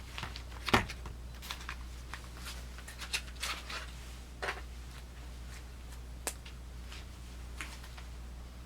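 Scattered light clicks and rustles of Swiss Army knives being handled, the sharpest click about a second in and a busy run of them in the next few seconds, over a steady low hum.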